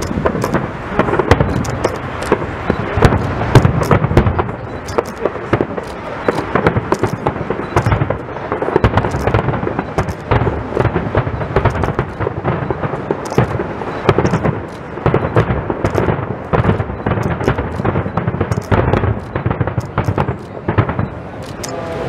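Aerial firework shells bursting at a fireworks display: a dense, rapid run of bangs and crackles, several a second.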